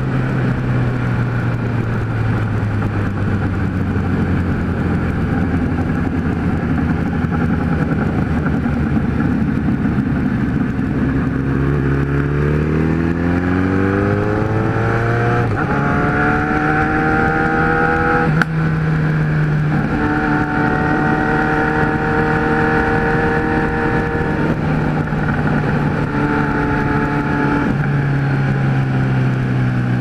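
Kawasaki Z1000 inline-four running through a 4-into-1 exhaust, heard from the saddle with wind noise: low revs at first, then revving up hard about halfway through, the pitch rising steadily and then stepping down at several gear changes.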